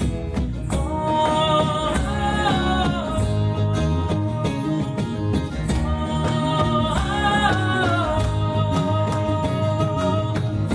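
Live folk band playing: strummed acoustic guitar, electric bass and a hand-played frame drum keep a steady groove, under a male lead vocal that holds long notes about two seconds in and again about seven seconds in.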